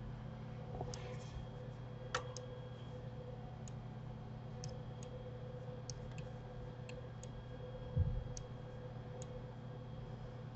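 Scattered computer mouse clicks, about a dozen at irregular intervals, over a steady electrical hum. A low thump about eight seconds in is the loudest sound.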